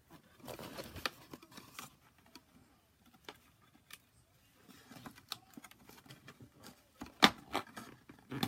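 Plastic and cardboard toy packaging being handled: rustling and scattered small clicks, the loudest a sharp click about seven seconds in.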